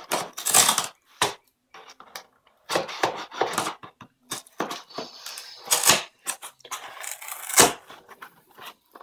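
Cardboard and plastic packaging being torn open and handled as a Nerf Modulus blaster is pulled out of its box: irregular rustles, scrapes and crackles, with a few louder rips.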